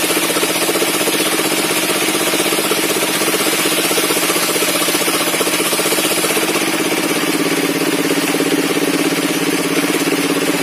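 Engine driving a sawmill's table circular saw, running steadily with a rapid even beat. About six and a half seconds in, a high hiss drops away and the lower sound grows stronger.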